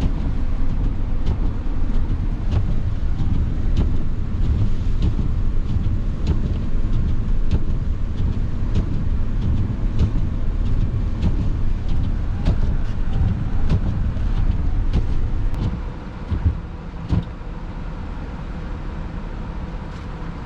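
Van driving on a snowy road, heard from inside the cab: steady low engine and tyre rumble with small scattered clicks. About sixteen seconds in the rumble drops as the van slows, and a couple of knocks follow.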